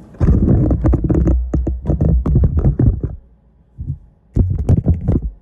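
Handling noise from a phone camera being picked up and repositioned: rapid knocks, rubbing and scraping right against its microphone, in two bursts with a short lull about three seconds in.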